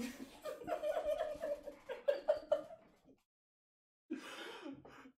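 People giggling and laughing in quick, rhythmic pulses for about three seconds, then a pause and a shorter burst near the end.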